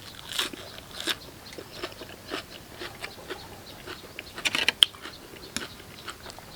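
A person biting and chewing crisp raw vegetables close to the microphone: irregular crunches, with a cluster of loud crunches about four and a half seconds in.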